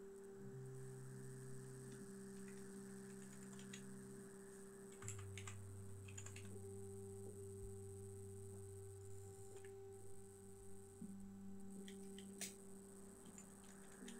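Faint computer keyboard keystrokes: a few scattered clicks typed slowly, with pauses of a second or more between them.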